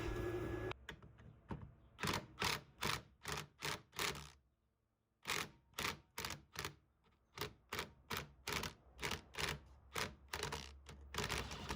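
Ratchet wrench clicking in short, quick strokes, about two or three a second with brief pauses, as a seized bolt is backed out by a nut welded onto it.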